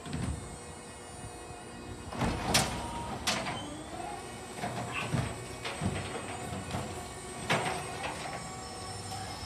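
Automated side-loader arm of an electric garbage truck lifting and tipping a wheelie bin into the hopper: a series of clunks and knocks, the loudest about two and a half to three seconds in, over a low hum.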